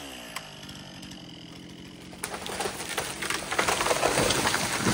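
Stihl chainsaw dropping back to idle after a cut, then the felled tree cracking and crashing down through the branches of neighbouring trees, ending in a heavy thud as it hits the ground near the end.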